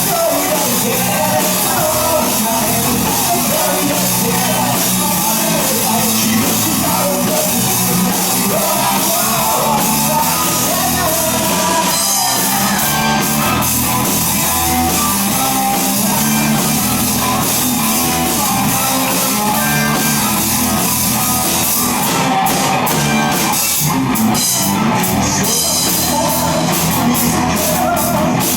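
Rock band playing live with a lead singer, drum kit and electric guitar, with cymbal hits thickening in the last several seconds.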